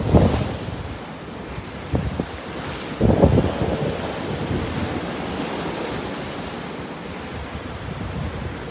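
Small Gulf of Mexico surf breaking and washing up a sandy beach in a steady hiss. Wind buffets the microphone in low rumbling gusts at the start and again about three seconds in.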